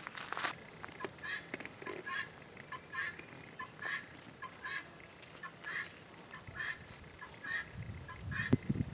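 Domestic poultry calling over and over: short, evenly repeated pitched calls, roughly one or two a second. Some low rustling near the end.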